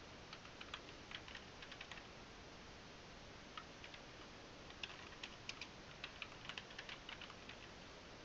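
Faint computer keyboard typing in quick runs of keystrokes, with a pause of about a second and a half between the runs.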